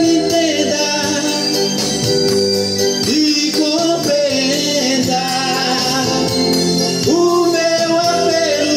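A man singing a forró song into a handheld microphone over steady backing music, holding long wavering notes a few times.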